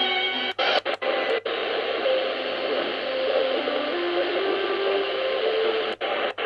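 Qodosen SR-286 shortwave radio tuning across the 41-metre band: its speaker gives static hiss with the faint tones of a weak station underneath. The sound drops out briefly several times, about half a second to a second and a half in and again near the end, as the tuning steps to new frequencies.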